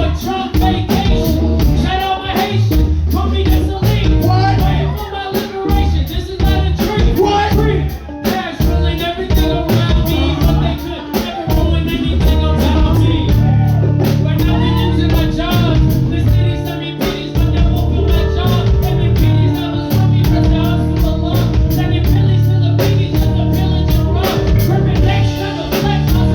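Live hip-hop performance: rap vocals over a backing track with a steady beat and heavy bass.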